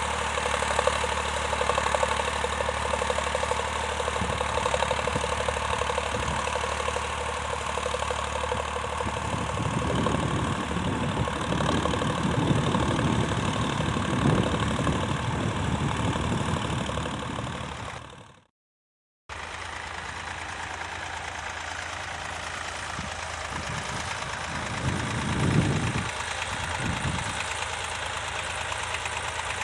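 Vintage tractor engine running steadily, with a brief cut to silence a little past halfway.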